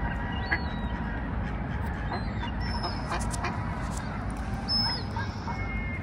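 Ducks calling in short scattered calls, with a few thin, high bird whistles over a steady low rumble.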